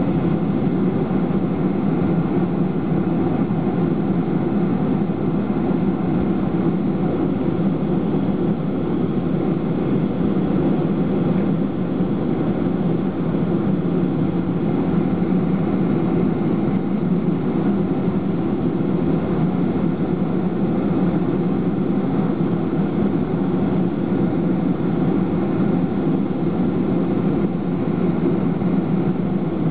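Steady drone of a Boeing 737-500's CFM56 turbofan engines at low taxi power, heard inside the passenger cabin over the wing. The low, even rumble does not change.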